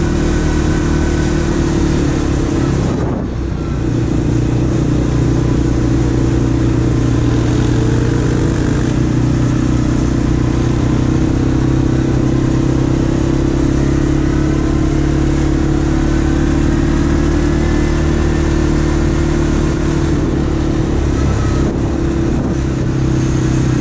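Quad bike (ATV) engine running steadily at a nearly constant speed, with a brief dip about three seconds in.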